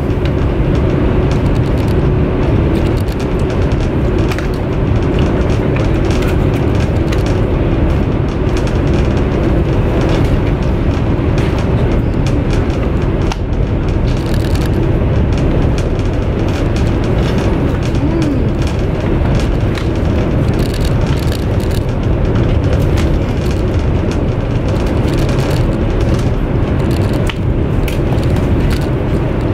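Steady low running rumble inside a high-speed train carriage, with scattered small clicks.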